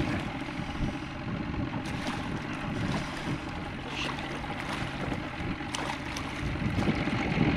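Water splashing as a hooked paddlefish thrashes at the surface beside the boat, with wind rumbling on the microphone.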